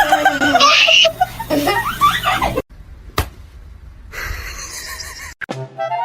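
A person laughing loudly, cut off suddenly after about two and a half seconds. A quieter stretch follows with a single sharp click, and music with drums starts near the end.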